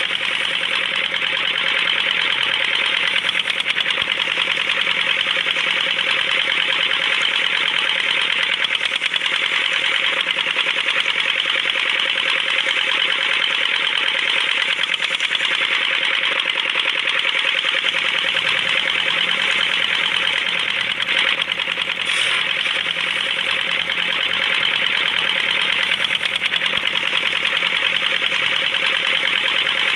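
A small motor running steadily, with a fast, even rattle.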